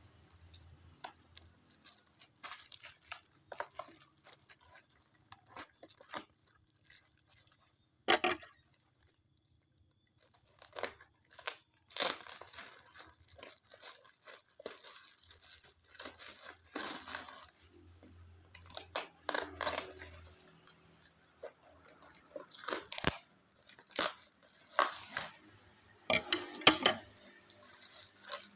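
Plastic packaging being handled, rustling and crinkling in irregular bursts with brief gaps between.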